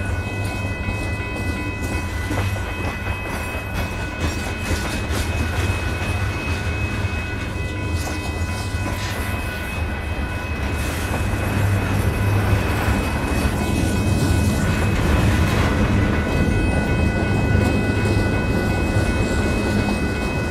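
Freight cars of a mixed manifest train rolling past: covered hoppers, log-loaded flatcars and gondolas give a steady deep rumble of wheels on rail, with a steady high-pitched whine over it. It grows a little louder about halfway through.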